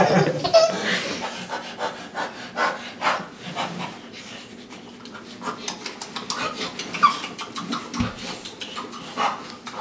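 Baby laughing, loudest in the first second, then quieter, with short breathy panting from a man imitating a dog.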